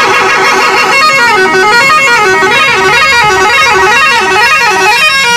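Musical multi-tone vehicle horn playing a melody. Rapid repeated notes for about the first second change to a run of stepped notes that climbs and falls over and over.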